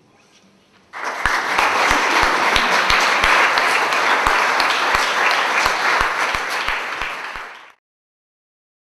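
Audience applauding, with one clapper close to the microphone keeping a steady beat of about three claps a second. The applause starts suddenly about a second in and cuts off abruptly near the end.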